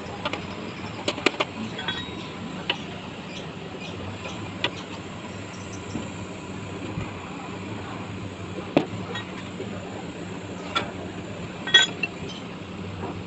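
Scattered light clicks and clinks of small hard objects being handled, over a steady background hum. The loudest clink comes near the end and rings briefly.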